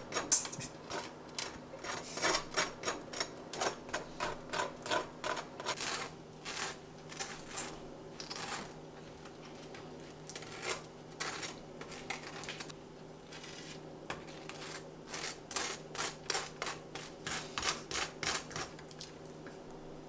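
Table knife spreading butter on toasted bun halves: runs of quick, scratchy scraping strokes, several a second, with short pauses between runs. A faint steady hum lies underneath.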